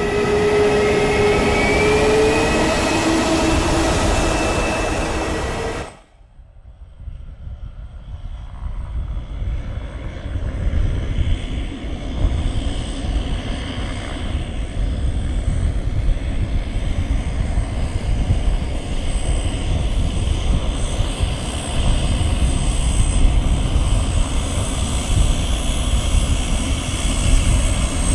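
A short intro sound with held tones, one sliding upward, cuts off about six seconds in. Then come the twin turboprop engines of a Britten-Norman BN-2T Turbine Islander running as it taxis: a steady low rumble with a thin high turbine whine. The sound grows louder over the next few seconds and then holds steady.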